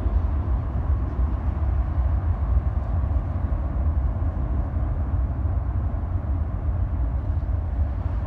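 Steady, distant roar of a Boeing 737-700's CFM56 jet engines as the airliner rolls out on the runway after landing, deep and rumbling with no distinct whine.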